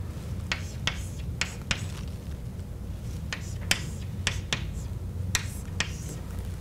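Chalk writing on a blackboard: about a dozen short, sharp taps and clicks as the chalk strikes the board, coming in uneven clusters, over a steady low hum.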